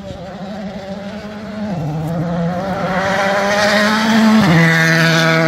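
A rally car's engine under hard acceleration, growing louder as it approaches. There is an upshift, a sudden drop in engine pitch, about two seconds in and another near the end.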